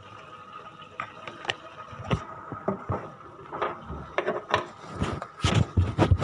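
Handling and light kitchen clatter: scattered small knocks, clicks and rubs that come thicker and louder in the last second or so, over a faint steady high hum.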